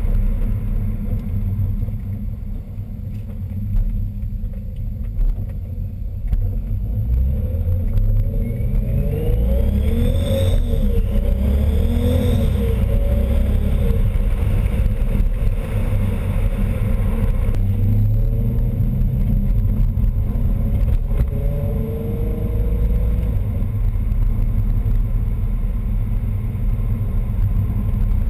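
Supercharged R32 engine idling and revved a few times, with a high whine rising and falling in pitch along with the revs. The owner traced the whine to a boost leak at the diverter valve, where a nut had backed off.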